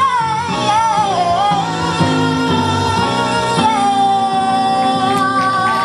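A woman singing a pop ballad live through a handheld microphone over instrumental accompaniment, her melody bending up and down, then holding one long steady note for the last two seconds or so.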